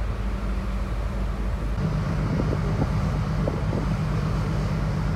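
Passenger ferry under way: the ship's engines drone steadily, with wind rushing over the microphone on the open deck. The engine hum grows stronger about two seconds in.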